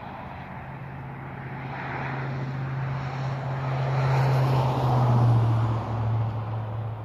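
An engine passing by: a steady hum that grows louder to a peak about five seconds in, its pitch dropping as it goes past, then fading.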